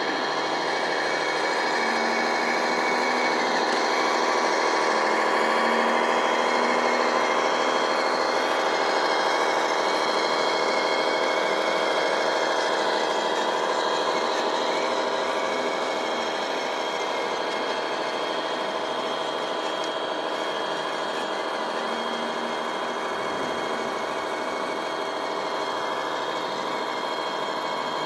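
Radio-controlled scale model heavy-haul truck driving slowly, with a steady engine-like drone and whine throughout.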